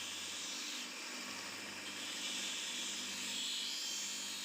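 A small motor running with a steady hiss and a low hum, the hiss growing a little brighter near the end.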